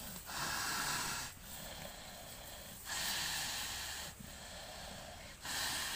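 Water buffalo restrained by the head, breathing heavily: three long, noisy breaths about two and a half seconds apart.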